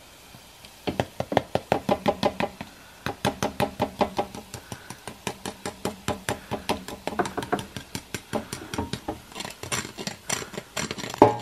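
A fork tapping and scraping the crackling-crisp skin of air-fried pork belly (lechon kawali), a quick run of crunchy clicks starting about a second in. The crunch is the sound of a well-crisped skin, which passes the "sound test".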